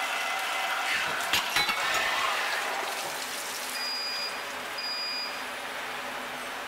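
Special-purpose drilling machine working a valve lifter: flood coolant splashing and hissing over the drill and fixture, with a few sharp metallic clinks about a second and a half in. The splashing eases after about three seconds, and two brief high-pitched tones sound near four and five seconds.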